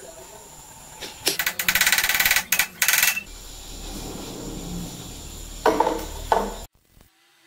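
Steel-on-steel rattling and scraping as a small splined shaft is worked into a bored steel sleeve held in a lathe chuck: a loud rattling spell about a second in, a low hum, then two shorter scrapes near the end before the sound cuts off suddenly.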